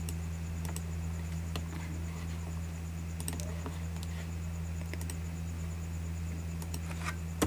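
A few scattered, separate clicks from a computer mouse and keyboard, over a steady low hum.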